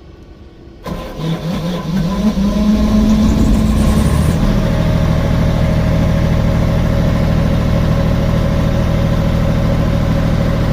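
Diesel generator engine starting about a second in, its speed rising for a few seconds and then settling into a steady run.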